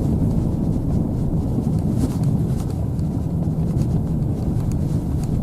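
Car driving slowly on a snowy road, a steady low rumble of engine and tyres heard from inside the cabin.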